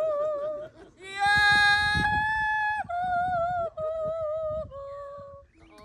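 A voice yodeling in long, high held notes with a wavering pitch. It jumps up to a higher note about a second in, holds it for nearly two seconds, then steps down through three lower notes.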